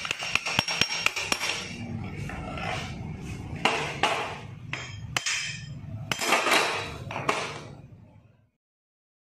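Metal tools and engine parts clinking and knocking as an old motorcycle engine is taken apart: a quick run of sharp taps at first, then rattling and scraping of parts being handled. The sound cuts off suddenly near the end.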